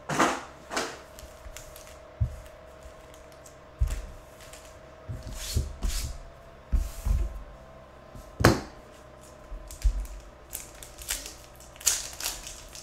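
Foil trading-card packs being handled and set down on a table: irregular crinkling of the wrappers and light knocks. Near the end a pack is torn open.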